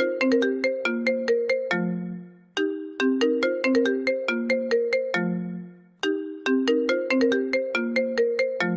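Instrumental phone ringtone: a short melody of quick pitched notes that ends on a lower held note fading out, then starts again, looping about every three and a half seconds.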